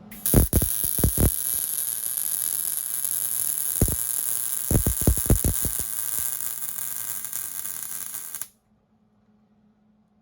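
Welding arc crackling and hissing steadily as a bead is laid on a steel exhaust pipe, with a few loud pops near the start and a quick cluster of them around the middle. The arc cuts off suddenly about eight and a half seconds in when the welder stops.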